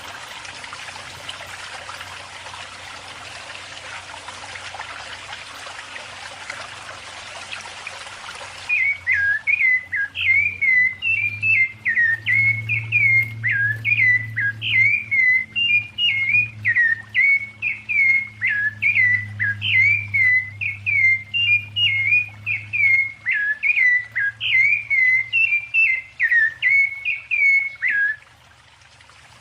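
A steady rushing hiss for about the first nine seconds, which cuts off abruptly. Then a bird sings a long run of clear whistled notes, about two a second, each sliding up and down in pitch, for nearly twenty seconds.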